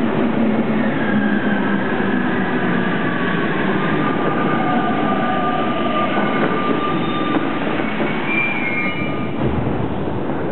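Paris Metro Line 1 MP89 rubber-tyred train pulling into the station and slowing to a stop, a loud steady rumble overlaid with whining tones that slide down in pitch as it slows. Higher squeals come about eight seconds in as it comes to a halt.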